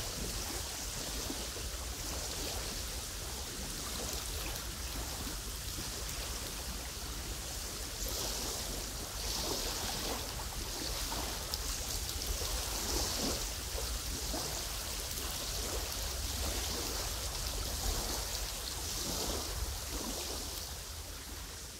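Wind over a lake with small waves lapping: a steady low wind rumble under a hiss that swells and falls every couple of seconds, with faint soft splashes of water.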